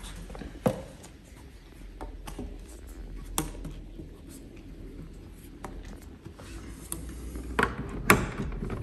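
Quiet handling and rubbing of a corrugated plastic vent hose, with a few scattered light clicks and knocks, two of them close together near the end as the hose is held to the toilet cassette's fitting.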